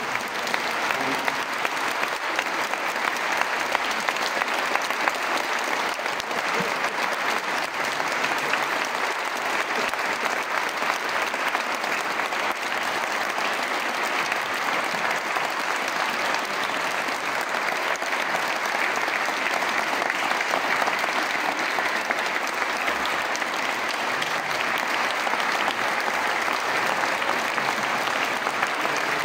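A choir and audience clapping their hands: long, even applause with no break.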